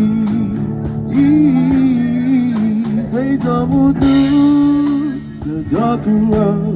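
Music: a voice singing held, wavering notes over guitar accompaniment.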